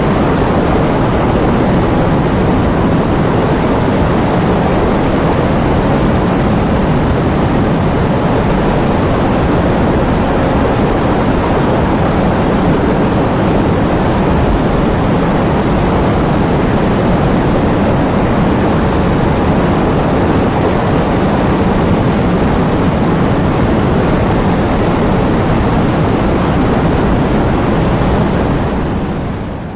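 Heavy rain with wind: a steady, dense roar of noise that fades out at the very end.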